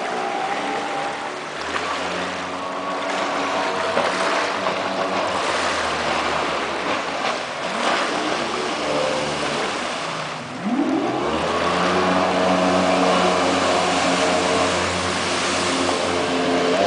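Jet boat running on the water, its engine note shifting with the throttle over rushing water; about ten seconds in it eases off briefly, then rises sharply as the boat powers up again.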